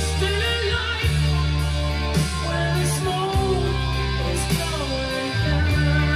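A rock song with a singing voice over guitar, bass and cymbals, played back from a cassette on a Tandberg TCD 440A deck just restored to its factory specifications.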